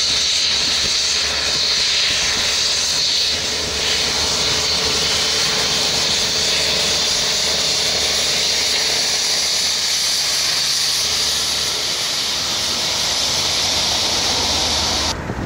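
A Class 37 diesel locomotive (English Electric V12) running past at the rear of a railhead treatment train of tank wagons: a steady engine note under a strong even hiss. It breaks off abruptly just before the end.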